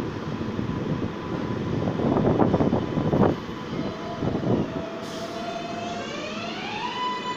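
New York City Subway train at the platform: two loud bursts of hiss, then an electric whine with several overtones that climbs in pitch and levels off as the train's propulsion starts up.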